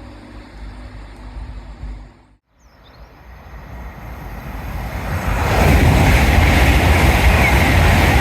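A low rumble, then after a sudden cut, a train's rushing noise builds over about three seconds to a loud, steady roar as it passes at speed.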